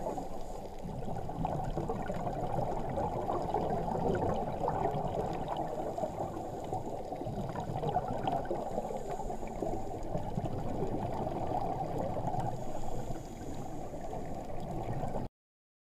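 Muffled underwater noise picked up by a GoPro Hero3 in its waterproof housing. It is a steady, dull, crackling rush with nothing bright in it, and it cuts off abruptly near the end.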